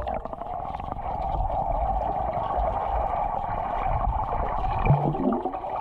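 Stream water heard from under the surface: a steady muffled rush over a low rumble, as a submerged camera picks it up. About five seconds in comes a short rising muffled tone.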